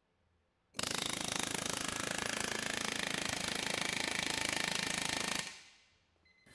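Harbor Freight Chief .401-shank air hammer firing a fast, steady run of blows into a load-cell dyno with its trigger throttled back. It starts about a second in and stops near the end. The Chief is known for poor trigger feathering, so it still hits hard at part trigger.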